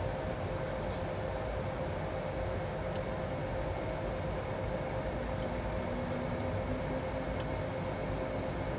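Steady flight-deck noise inside an Airbus A220-300 on final approach: an even rush of airflow and air conditioning with a constant hum, and a second, fainter hum joining about five seconds in.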